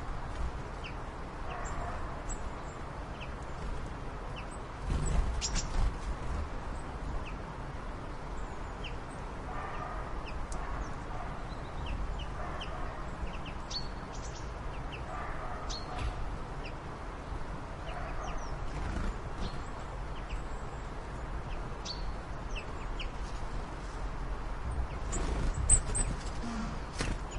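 Birds calling: soft clucking calls and short high chirps every second or two, over a low steady rumble, with two brief louder noises about five seconds in and near the end.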